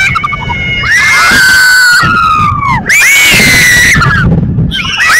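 Spectators close by screaming with excitement at the fireworks: about four long, high-pitched screams, each about a second long, often two voices at once, each trailing off downward at the end.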